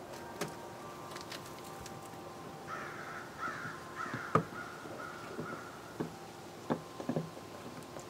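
Scattered clicks and knocks of a 2008 Cadillac CTS outside door handle being moved and fitted into the door, the sharpest about four seconds in. A bird gives a few harsh calls in the middle.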